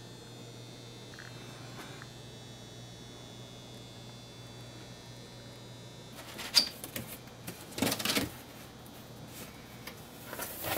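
Steady low room hum. Then, from about two-thirds of the way through, a few sharp rustles and scrapes of a large cardboard shipping box being handled and its flaps pulled open.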